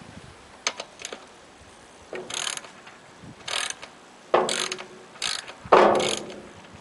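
A hand ratchet wrench clicking in short strokes, about five in a row, with a couple of light clicks before them.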